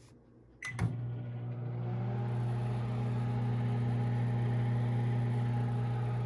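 Microwave oven: a couple of clicks about a second in, then it starts and runs with a steady hum that cuts off suddenly near the end.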